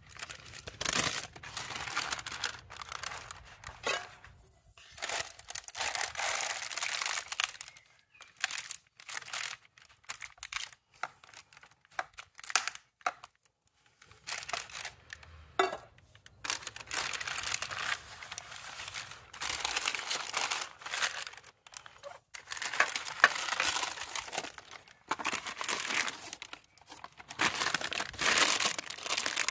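Brown baking paper crinkling and rustling as it is handled and shaped by hand. The sound comes in irregular bursts with short pauses between them.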